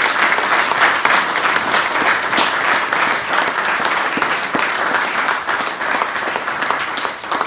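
A roomful of people applauding, many hands clapping together in a dense, steady patter.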